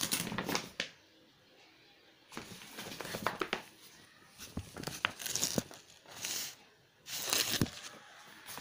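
The fabric of a pop-up play tent rustling and crinkling as it is handled, in irregular bursts with two short pauses.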